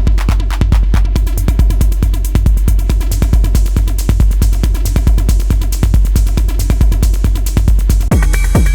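Roland TR-8S drum machine playing an industrial techno pattern at 138 BPM: a steady kick drum with heavy low end under fast hi-hats and percussion. About a second in the hi-hats thicken, and near the end the pattern changes, bringing in new pitched hits.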